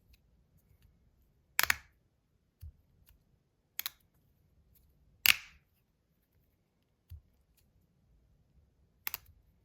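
Magnus metal fidget slider, a combo of half Toad X and half Rail, snapping from side to side: four sharp clacks spaced a second or more apart, with a couple of soft low knocks between them.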